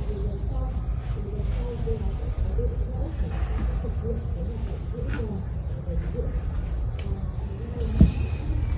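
Insects, likely crickets, trilling steadily at a high pitch over a constant low rumble, with a single sharp knock near the end.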